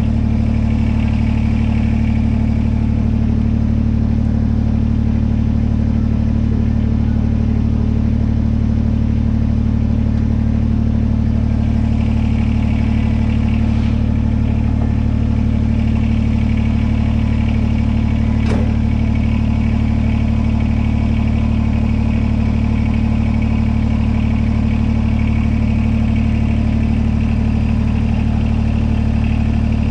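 Kubota BX-series compact tractor's diesel engine idling steadily, with one sharp click about two-thirds of the way through.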